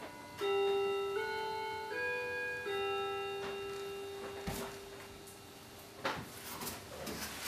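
A simple electronic-sounding tune of four held notes, each about three quarters of a second, the last one held longer and fading away. A few sharp clicks follow near the end.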